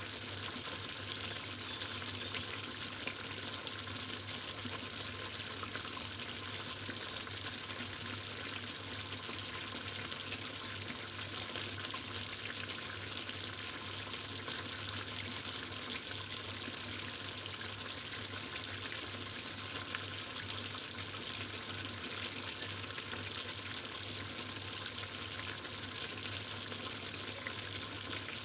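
Chicken stew simmering in a metal pot on an induction cooktop: a steady sizzling and bubbling of the thick sauce, with a low steady hum underneath.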